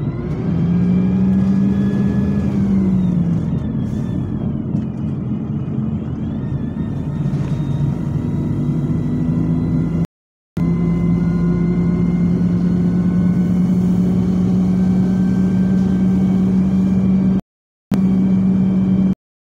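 Preserved bus's diesel engine pulling along at speed, heard from inside the bus, with a strong steady drone that rises and then dips in the first few seconds and holds a higher, steady note from about halfway. The sound cuts out completely for a moment twice.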